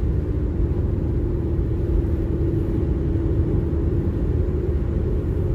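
Car road and engine noise heard from inside the moving car's cabin: a steady low rumble with a faint steady hum.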